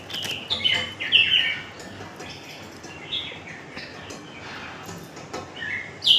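A small bird chirping: short, downward-sliding calls, several in quick succession at first, one around the middle, and more near the end.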